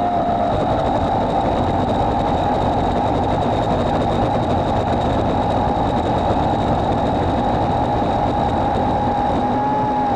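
Battery-electric EGO Power+ PH1400E power head with its chainsaw attachment running at full speed: a steady high whine over chain noise, its pitch lifting slightly near the end.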